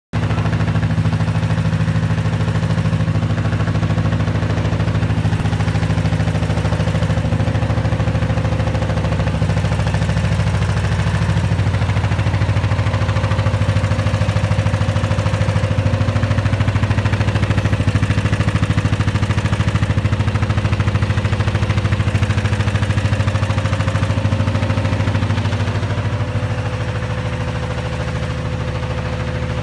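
Multi-needle chainstitch quilting machine running at speed, its control panel set at 800 rpm: a steady, fast, even mechanical rhythm over a low hum as the rows of needles stitch through the quilt.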